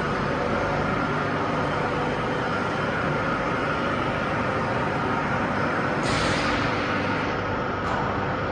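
Production machinery running with a steady drone and a faint whine. A brief hiss cuts in about six seconds in.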